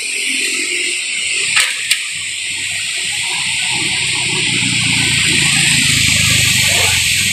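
Strong wind gusting through trees with a steady rushing hiss, two sharp clicks about a second and a half in, and a low rumble building through the second half.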